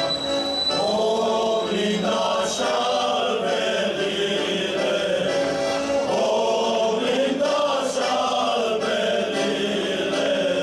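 A group of voices singing a folk song together, choir-like, in sustained sung phrases.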